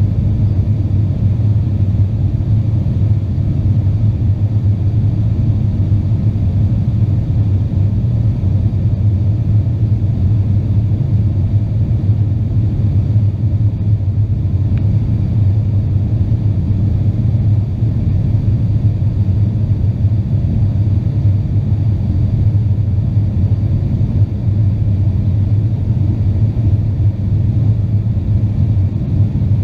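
Steady low drone of an Avro RJ85's four turbofan engines and airflow heard inside the passenger cabin, even and unchanging.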